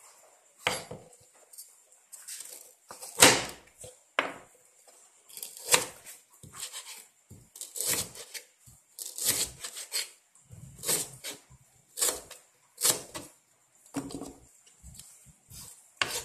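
Large kitchen knife chopping and slicing on a plastic cutting board: irregular knocks, about one or two a second, the loudest about three seconds in.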